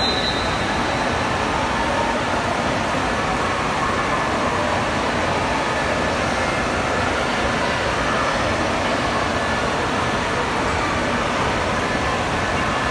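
Steady rushing noise of an indoor wave pool, with waves moving through the water.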